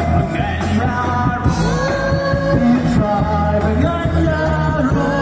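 Live band playing a song through PA speakers: a group of voices singing held notes over drum kit, acoustic guitars and a steady bass line.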